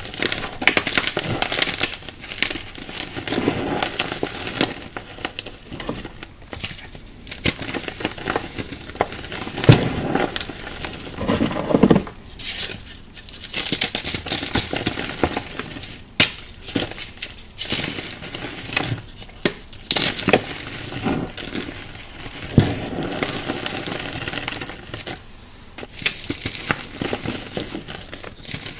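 Hands crushing and crumbling dry, brittle chunks and powder: an irregular, dense crunching and crackling over a fine gritty hiss, with louder snaps now and then.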